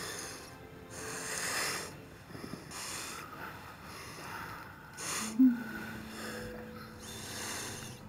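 Soft background music with held notes, under a few soft breaths from people lying close in bed. There is one short, sharper sound about five seconds in.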